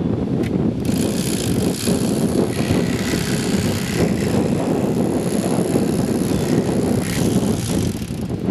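Electric fillet knife running steadily while skinning a walleye fillet against the table, with a brighter, hissier layer from about a second in until near the end as the blade cuts.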